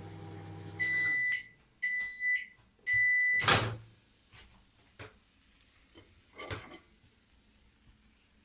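LG microwave oven humming as it runs, stopping about a second in, then three long high beeps marking the end of the cycle. The door pops open with a thud about three and a half seconds in, followed by a few light knocks and clinks as the plate is taken out of the oven.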